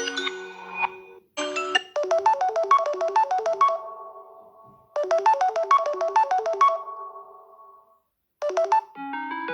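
Samsung Galaxy S10 ringtone: a quick, bright melody of short notes, played twice about three seconds apart, each phrase ending on a held note that fades out. The tail of a different tone sounds at the start, and another tone begins near the end.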